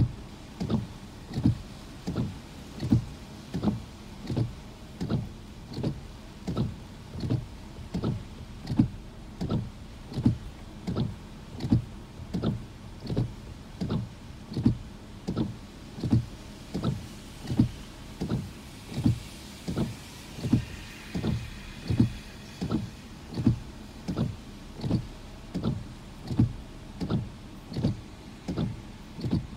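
Car windshield wipers sweeping the glass, a low thump from each stroke about once a second, heard from inside the car.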